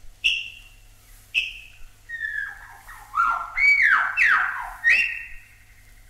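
Albert's lyrebird singing: two sharp, short whistled notes about a second apart, then a run of loud, downward-sliding whistles about two seconds in, ending on a held note near the five-second mark.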